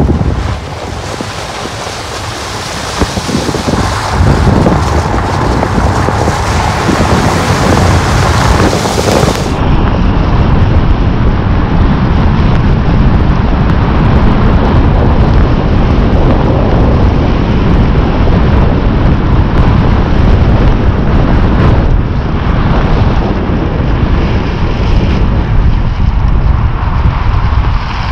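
Wind rushing over the microphone of a camera on a moving motorcycle, with the bike's running under it. The rush is a little quieter for the first few seconds, then steady and loud.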